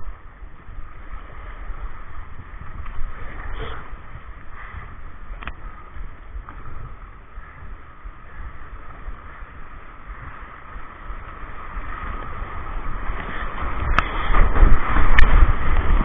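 Water rushing and gurgling around a whitewater kayak, with a few light knocks, getting louder and heavier over the last few seconds.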